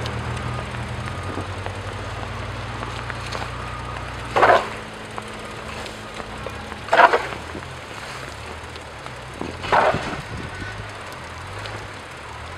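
Vehicle engine running steadily in the snow, with three short scraping sounds about two and a half seconds apart, the loudest things heard.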